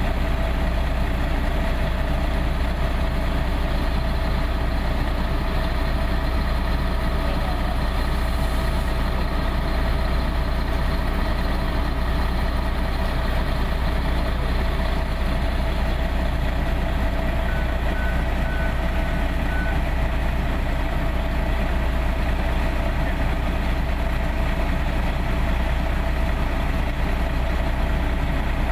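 Heavy diesel engine of a fire engine idling steadily with a deep drone and a constant hum. A short run of high beeps comes a little past the middle.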